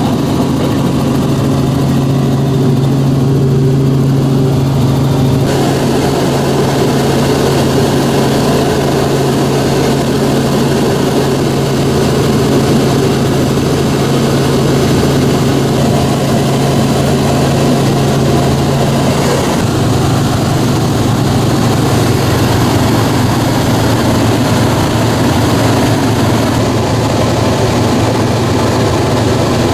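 Helicopter in flight heard from inside the cabin: a loud, steady drone of engine and rotor with a constant low hum. The hum shifts slightly about two-thirds of the way through.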